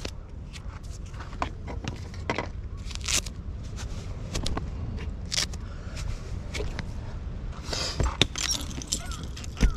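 Gear, including a plastic cooler box, being shifted and packed into a camper van's exterior storage compartment. Scattered scrapes, knocks and clicks, with denser rustling and clicking near the end.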